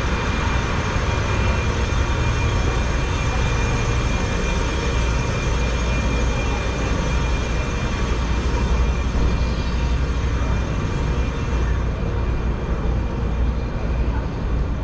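Car ferry's engines running with a steady low rumble and a thin, steady high tone above it, as the boat pulls in to dock.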